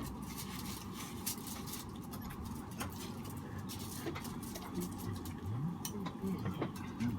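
Eating sounds at a shared seafood meal: scattered small clicks, taps and rustles as food is picked up, shells are handled and rice is scooped.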